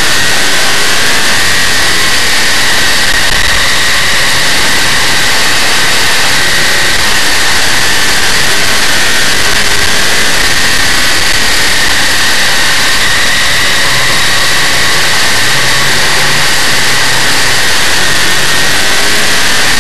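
Big-block Chevrolet V8 of a dirt modified race car running hard at racing speed, heard from on board the car: a loud, steady engine sound with no let-up.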